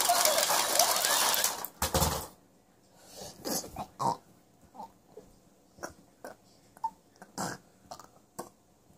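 A child's mouth-made blast sound effect: a long, rough rushing noise, then a single heavy thump about two seconds in. Scattered light clicks and taps of plastic toy figures being handled follow.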